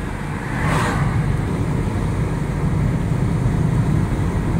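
Steady low rumble of engine and tyre road noise inside a moving car's cabin, with an oncoming car rushing past about a second in.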